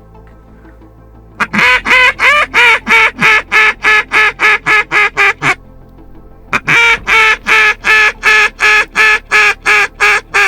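Duck call blown close by in two long quacking sequences, each about a dozen sharp notes at roughly three a second with a pause between: calling to bring circling ducks in.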